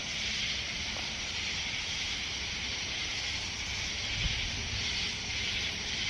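Outdoor night ambience: a steady, high-pitched insect chorus over a low rumble of wind on the microphone, with one brief low thump about four seconds in.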